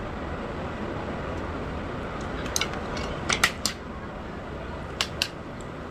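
A handful of short, sharp clicks of hard objects, four close together in the middle and two near the end, over a steady background hiss.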